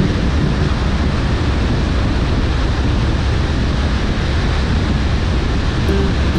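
Steady road and wind noise from a moving car: a constant rush of tyres on asphalt and air, with a heavy low rumble.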